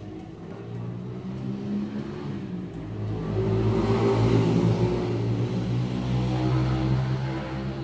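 A motor running with a steady low hum, growing louder about three seconds in and easing off near the end.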